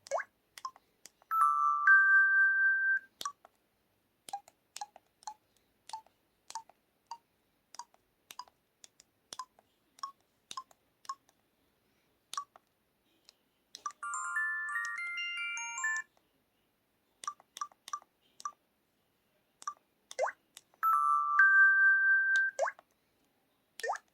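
LG-KT1000 mobile phone's built-in sound effects: a string of short key beeps, broken by brief electronic jingles. A two-note chime plays near the start and again near the end, and a quick rising run of notes plays in the middle.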